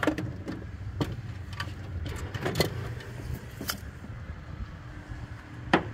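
Scattered light clicks and knocks of hands handling wiring and parts in a car's engine bay, with a sharper knock near the end, over a steady low hum.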